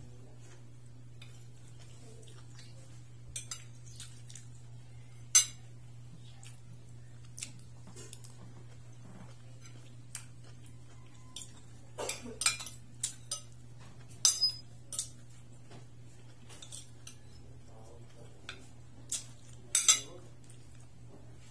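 Metal spoon and fork clinking and scraping against a plate in scattered sharp clinks, the loudest about five seconds in, with quick flurries from about twelve to fifteen seconds and again near the end.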